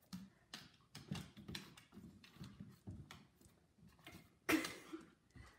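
A dog's claws clicking and tapping on a hardwood floor in irregular short taps as it moves about and noses under a chair, with one louder noise about four and a half seconds in.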